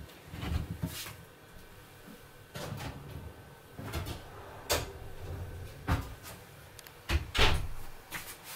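A lidded enamelled steel roasting pan is set into an oven: a series of separate knocks, scrapes and clatters of metal, ending with a louder knock near the end as the oven door is shut.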